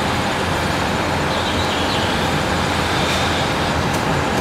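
An EH500 electric locomotive hauling a freight train rolling slowly into a station, a steady low rumble of the locomotive and wagons on the rails. A faint high whine comes and goes in the middle.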